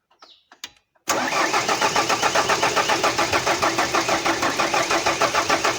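Starter motor cranking a 2007 Ford Ranger's 2.5-litre diesel engine in an even, pulsing rhythm from about a second in, without it firing. The cause is that no diesel is reaching the injectors, a fuel delivery fault placed at the diesel pump.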